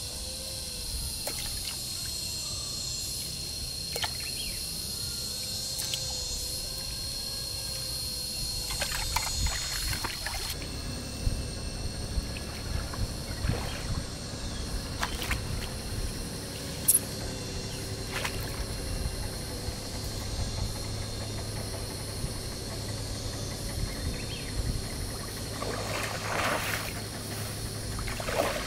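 Water splashing and trickling in short, irregular bursts, over a steady high-pitched insect buzz.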